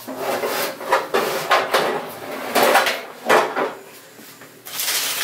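A baking pan and kitchenware being handled: a string of short clattering and scraping sounds, with a brief lull near the end.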